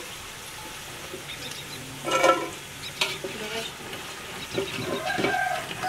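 Potato fries frying in hot oil in a metal pot, a steady sizzle, with a metal skimmer clinking and scraping against the pot as fries are lifted out; a louder knock about two seconds in.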